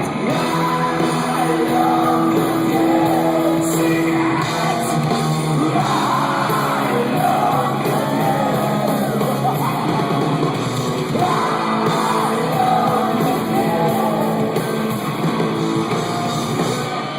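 Live rock band playing, with a male voice singing and yelling over it.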